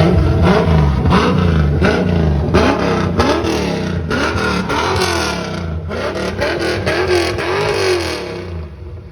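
Chevrolet Corvette C4's V8 engine revved in a quick series of throttle blips, the pitch rising and falling with each one. The engine sound fades away near the end.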